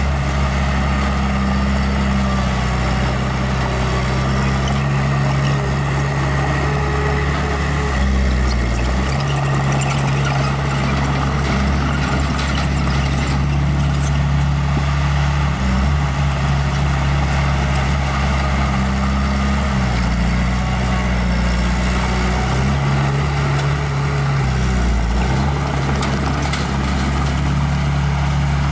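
Small bulldozer's diesel engine running steadily under load, its low note shifting in pitch a few times as the load changes, around a third of the way in, near two-thirds and again near the end.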